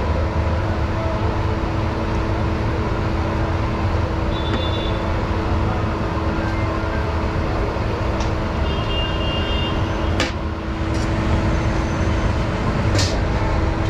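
Steady street-traffic rumble with a constant low hum, and two sharp metallic clinks of serving utensils against a large metal cooking pot in the second half.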